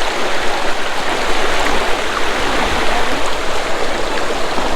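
Steady rush of flowing water from a rocky stream or river.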